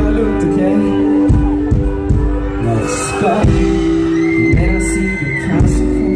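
A rock band playing live and loud, heard through a phone's microphone from the audience: held chords over a thudding bass drum, with singing.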